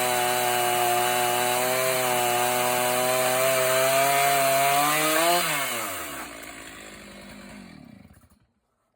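Chainsaw on an Alaskan chainsaw mill running at steady full throttle through a hardwood log, cutting a slab. About five seconds in the throttle is let off and the engine winds down, falling in pitch and fading to stop.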